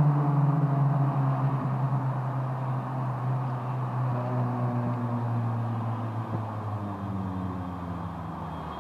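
Four-cylinder car engine heard from inside the cabin, running steadily with its note slowly dropping in pitch and getting quieter as the car eases off.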